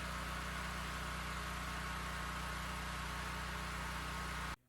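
Portable home generator engine running steadily with an even hum, cutting off suddenly near the end.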